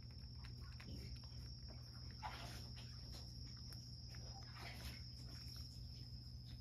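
Cat licking a small plate clean: faint, quiet licking clicks, with a short pause partway through. A steady thin high tone and a low hum run underneath.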